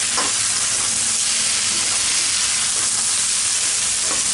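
Sliced potatoes and dill leaves frying in hot oil in a kadhai give a steady sizzle while a spatula stirs them.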